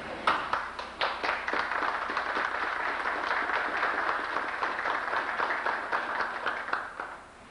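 Audience applauding. It begins with a few separate claps, fills in to steady applause, and dies away about seven seconds in.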